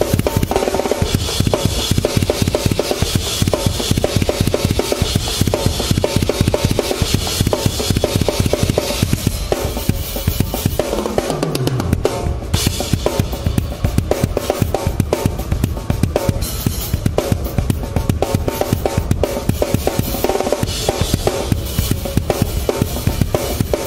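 Metal drum kit played live at full power: a fast, steady stream of bass-drum strokes from a double pedal, with snare hits and cymbals over the top, and the rest of the band's music behind.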